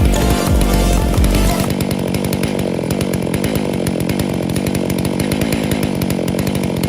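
Background music with a heavy bass cuts out about a second and a half in, leaving a gas chainsaw running steadily.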